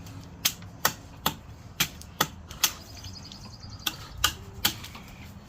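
Sharp strikes of a tool on wood, about two a second, with a pause of about a second midway: a wooden club blank being worked by hand.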